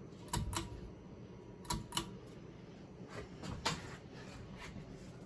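Bahama BC-52 ceiling fan's pull-chain switch clicking in quick pairs several times as it is stepped to the low speed. A few more clicks follow over a faint steady hum from the fan.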